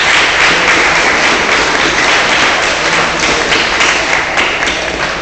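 Spectators applauding, a dense patter of hand claps with some sharp single claps close to the microphone, easing off at the end.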